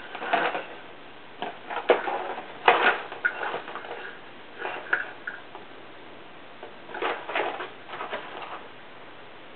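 Cat pawing and scrabbling at a toy mouse inside a cardboard tissue box: irregular flurries of scratching and knocking on the cardboard, with short pauses between.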